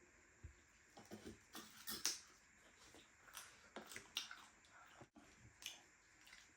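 Faint eating sounds: scattered soft clicks and smacks of a person chewing food close to the microphone, the sharpest about two seconds in.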